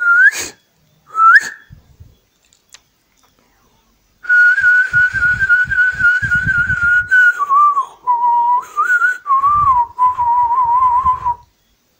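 Whistling: two short upward whistles, then a long warbling whistle that drops to a lower pitch about three seconds in and wavers there until it stops.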